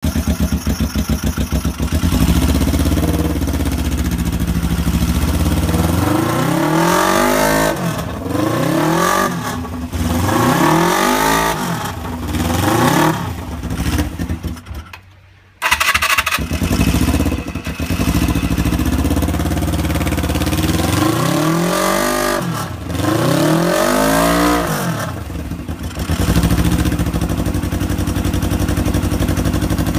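Suzuki GSX250E parallel-twin engine breathing through a cut-down Pretty cross-pipe exhaust with silencers fitted. It is idling and being blipped: a run of about four throttle blips, then a steady idle, then two more blips. The sound fades and drops out for about a second midway, then comes back abruptly.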